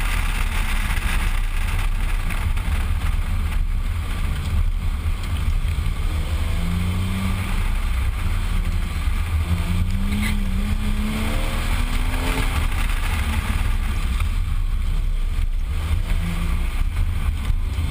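Porsche Boxster engine revving up and down through an autocross run, its pitch rising and falling several times, under heavy wind buffeting on the camera's microphone and tyre noise on concrete.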